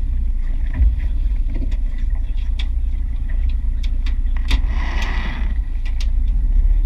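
Steady low rumble aboard an aluminium fishing boat on the ocean, with scattered light clicks and a brief hissing rush about five seconds in.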